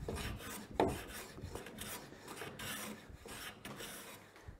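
Hand smoothing plane with a freshly sharpened blade cutting along the rough edge of a hard maple board, several strokes one after another with the loudest about a second in. It is taking very thin, wispy shavings.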